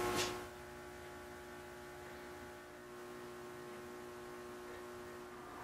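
Faint steady electrical hum of workshop room tone, with a few fixed tones, after a brief noise at the very beginning.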